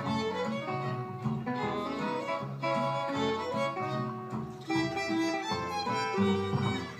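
Small acoustic band playing live: a violin carries the melody over strummed acoustic guitar and upright bass, with a steady beat.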